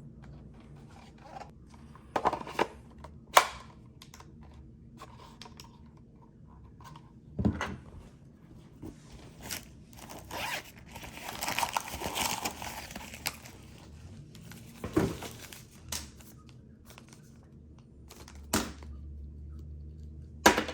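Unboxing of drone gear: scattered sharp clicks and knocks as parts and cases are handled and set down, with a few seconds of packaging crinkling about halfway through.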